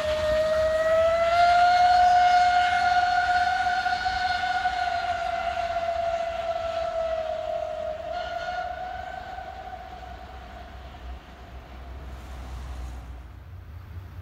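Steam locomotive whistle sounding one long held blast that rises slightly in pitch at first, sags, swells briefly again and then fades out.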